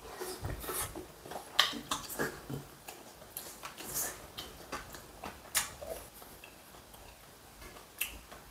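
A man chewing a mouthful of braised eel with kimchi: a run of short, wet mouth clicks and smacks that thins out after about six seconds, with a few sharp taps among them and one more near the end.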